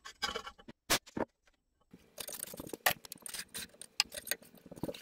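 Masking tape crackling as it is pulled off the roll and wrapped around small oak blanks, with handling clicks of the wooden pieces on the sander's metal table. There are two sharp clicks about a second in, then an irregular crackling spell from about two seconds in.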